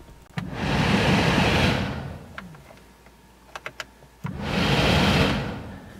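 Dodge Caravan heater blower fan blowing air through the dash vents on its high setting, switched on twice; each time it comes on abruptly and fades away as the knob is turned back down, with a few soft clicks in between. The fan works only on high, the sign of a failed blower motor fan speed resistor.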